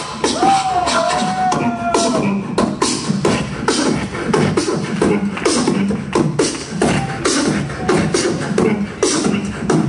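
Live beatboxing into a microphone: a fast, steady beat of mouth-made kicks, snares and clicks, with sliding hummed tones over it in the first two seconds.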